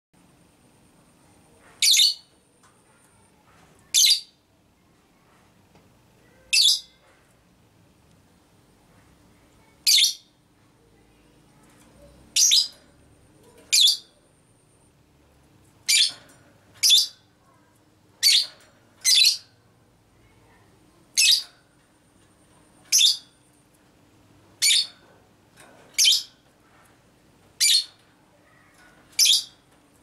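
Lovebird calling: about sixteen short, shrill, high-pitched calls, spaced irregularly one to three seconds apart and coming closer together after the first ten seconds or so.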